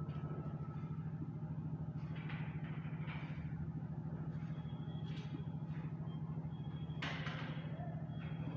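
Marker pen scratching and squeaking on a whiteboard in several short strokes as words are written, over a steady low hum.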